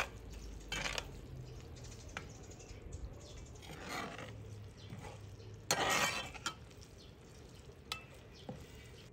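Metal spoon stirring onions and turmeric frying in oil in a metal pot: clicks and scrapes of the spoon against the pot, the longest scrape about two-thirds of the way in, over a faint sizzle.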